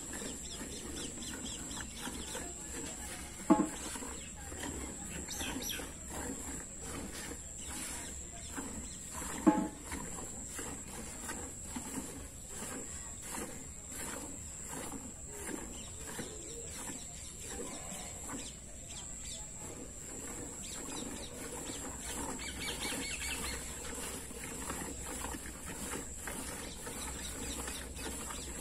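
Cow being milked by hand into a steel bucket: quick, regular squirts of milk hitting the bucket. Two short, loud sounds break in, a few seconds in and again near ten seconds.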